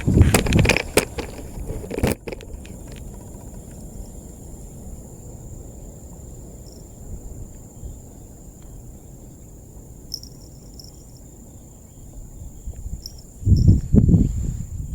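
Insects, crickets, trilling as one steady high tone. Loud low rumbling noise comes over it for the first couple of seconds and again near the end.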